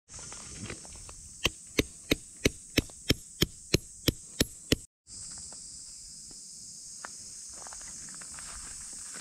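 A hammer driving a tent peg into the ground: about eleven sharp strikes, roughly three a second. After a sudden cut, a steady high buzz of insects.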